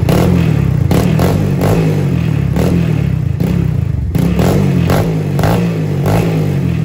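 Honda TRX 250X quad's single-cylinder four-stroke engine through an HMF aftermarket exhaust, revved in a quick series of throttle blips, the exhaust note rising and falling about once or twice a second.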